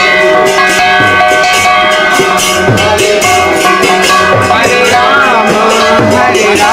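Indian devotional music: a steady drumbeat about twice a second with jingling hand percussion over held sustained tones.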